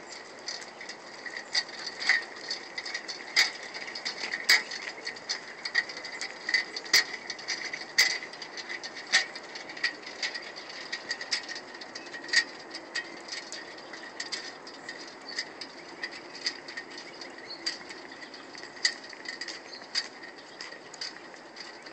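Child's red metal tricycle rattling and clicking as it is pedalled along a concrete sidewalk: an irregular run of sharp ticks, several a second.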